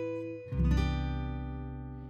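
Background music on acoustic guitar: a chord rings and fades, then a new chord is strummed about half a second in and slowly dies away.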